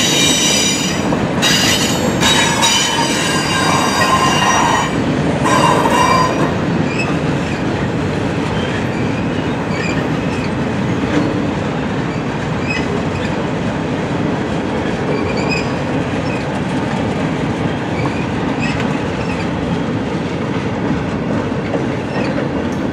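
Freight cars of a passing train rolling over the rails. Shrill wheel squeal for the first six seconds or so, then a steady rolling rumble with faint scattered squeaks.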